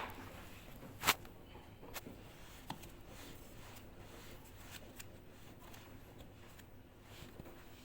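Handling noises: a few separate light clicks and knocks, the sharpest about a second in, over a faint steady low hum.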